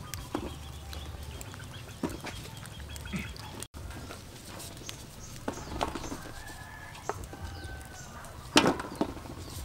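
Chickens clucking in the background, with light clicks and rustling as fresh red chilies are destemmed by hand over a metal tray; a sharper clack comes shortly before the end.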